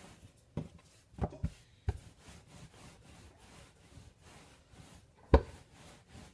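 Rolling pin working flatbread dough on a floured countertop: a soft rubbing as it rolls, broken by several knocks as the pin bumps the counter, the loudest about five seconds in.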